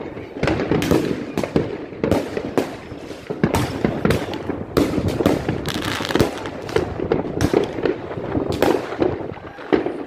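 Fireworks going off: many bangs and crackles in quick, irregular succession, several shells bursting one on top of another.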